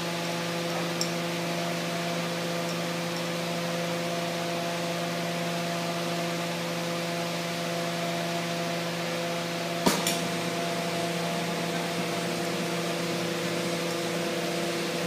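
Glassblowing torch flame hissing steadily, over a steady hum. One sharp click about ten seconds in.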